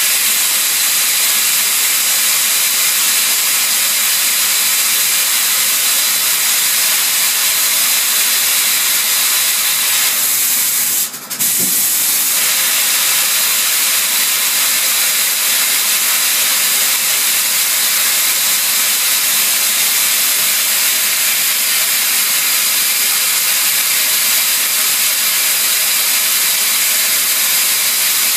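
CNC lathe machining, a loud steady hiss throughout. About eleven seconds in the hiss dips briefly and a short sharp sound comes as the tool turret indexes to the next tool.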